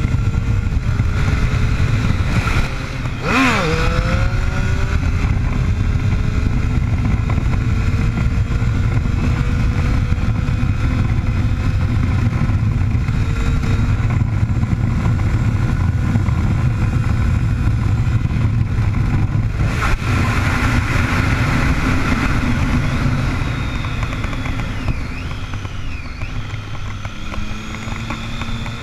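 2009 Triumph Street Triple 675's inline-three engine through a full Arrow 3-1 exhaust, running hard under way. The revs drop and jump back up sharply about three seconds in, then climb slowly for several seconds, with a brief break near twenty seconds. It is a little quieter near the end.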